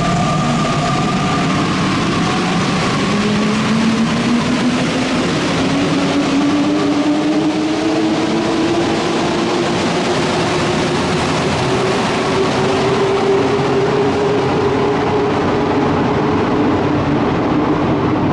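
NS-93 rubber-tyred metro train pulling out of the station and accelerating away. Its motor whine rises steadily in pitch over a constant rush of running noise.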